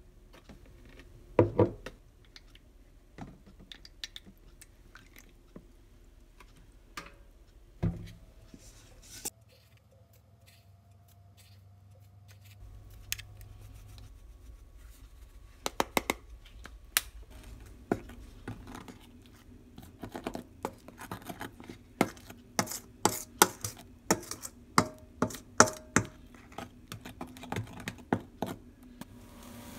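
Metal spoon clinking and scraping against a stainless steel mixing bowl while stirring a wet red pepper paste seasoning. The clicks are scattered at first, with a louder double knock about a second and a half in, then come thick and fast through the second half as the stirring picks up.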